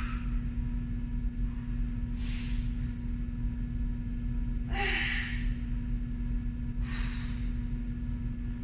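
A woman breathing hard through exertion: three loud, breathy exhales about two seconds apart, over a steady low hum.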